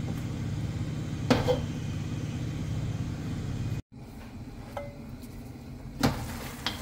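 Steady low rumble of a gas hob under a wok of chicken simmering in sauce and water, with a wooden spoon knocking against the wok about a second in. After an abrupt cut it is quieter, with small clicks and a metal clink near the end as the glass lid on the wok is handled.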